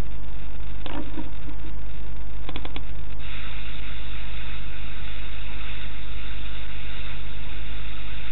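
Steady low rumble and hiss with a faint electrical hum under it, unchanging in level. A few soft clicks about one and two and a half seconds in, and the hiss turns brighter about three seconds in.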